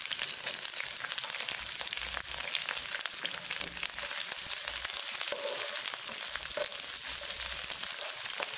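Sliced onions and curry leaves sizzling in hot oil in a nonstick pan, with many small crackles, while being stirred with a wooden spatula.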